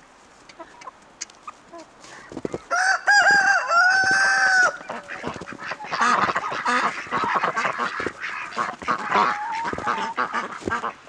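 A loud drawn-out call about three seconds in, in a few short notes and then one long held note, like a rooster crowing; then from about six seconds on a mixed flock of chickens and ducks clucking and quacking over one another.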